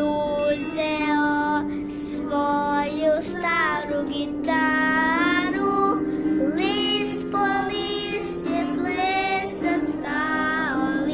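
A child singing a Serbian school children's song over steady instrumental accompaniment, the sung notes held and gliding between phrases.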